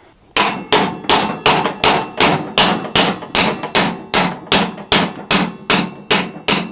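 Rapid, even hammer blows on a long metal drift, about three a second, each with a short metallic ring: the upper steering-head bearing cup of a scooter frame being driven out from below.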